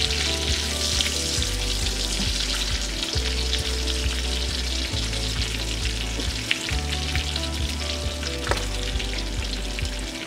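Bacon strips sizzling and crackling in their own fat in a nonstick frying pan, a steady hiss with fine pops throughout, as the bacon browns and renders its grease.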